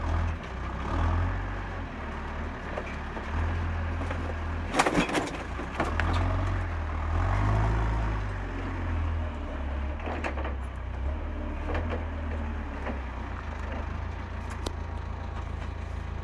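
JCB forklift's diesel engine running, its rumble rising and falling with the throttle. Over it come sharp crunches and clanks of car-body metal being wrenched, the loudest about five seconds in and several more later.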